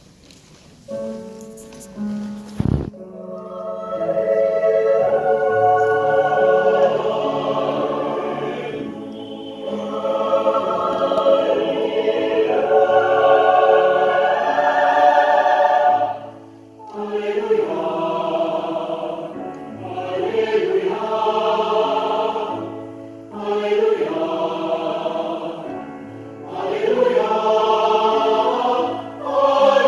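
Mixed choir singing in long, swelling phrases that break off and start again several times, with a single sharp knock about three seconds in.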